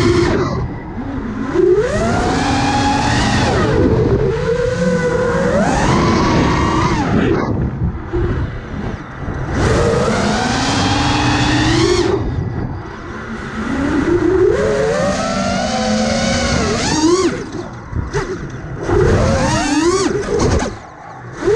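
Brushless motors and propellers of an iFlight Nazgul5 5-inch FPV quadcopter on 4S, whining in pitch. The pitch rises and falls over and over as the throttle is punched and chopped, with several short dips where the throttle is cut.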